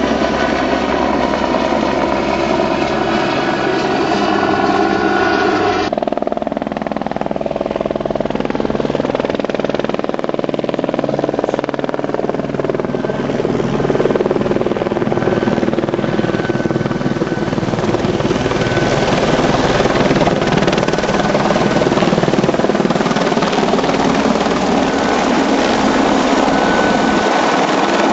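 Helicopter's rotor and turbine running steadily, the sound changing abruptly about six seconds in and growing slightly louder later on.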